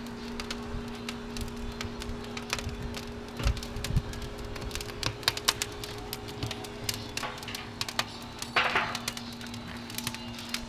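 Wood fire crackling inside a steel drum, with irregular sharp pops and snaps and a brief hiss about eight seconds in, over a steady low hum.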